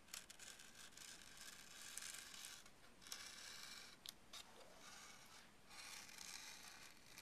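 Single-edge razor blade slicing excess tissue paper along the edge of a balsa wood wing, faint dry scraping strokes with short breaks between them and a small click about four seconds in.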